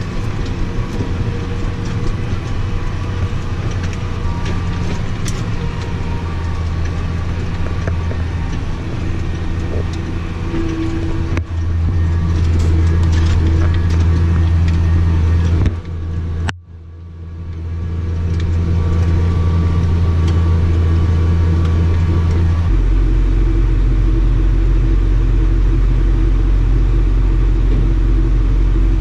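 Large farm machinery's engine running steadily under load. It gets louder partway through, dips out briefly near the middle, and settles to a deeper pitch in the last few seconds.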